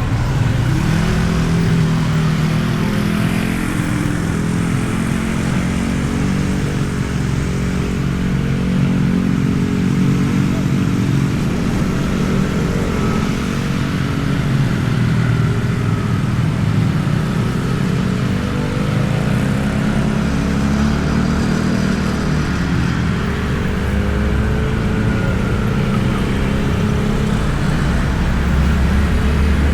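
Motorcycle engine running on the move, its pitch rising and falling several times as the rider speeds up and slows, over a steady low rumble of wind and road heard from a mic inside the rider's helmet.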